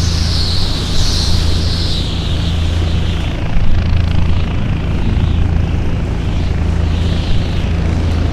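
A steady low engine drone, with a rushing hiss over it that swells and fades.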